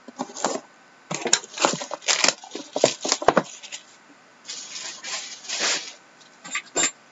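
Packaging of a sealed hockey trading-card box being opened by hand: irregular rustling, crinkling and tearing, with sharp clicks and a few brief pauses.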